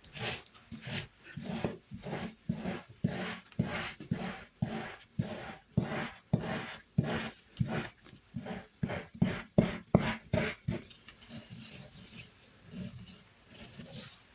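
Kinetic sand being cut in quick repeated strokes, about two to three rasping scrapes a second, turning softer and sparser about eleven seconds in.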